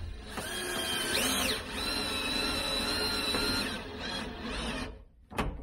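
Cordless drill-driver driving a screw into the window frame. The motor whines in a short run that rises then falls in pitch, then a longer steady run that stops about five seconds in.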